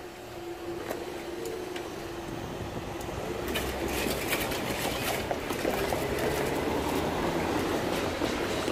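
Level crossing barrier mechanism humming at one steady pitch as the boom rises, stopping about two seconds in. A rush of passing vehicle noise with scattered clicks then builds and grows louder.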